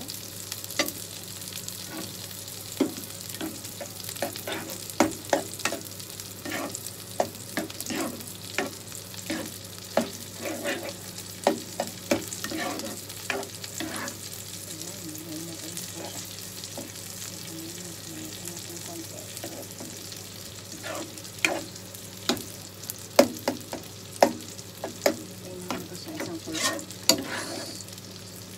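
Metal ladle stirring a simmering white sauce with mushrooms in a nonstick frying pan, with irregular clinks and scrapes against the pan over a steady sizzle. The clinks come thick at first, thin out in the middle, and pick up again near the end.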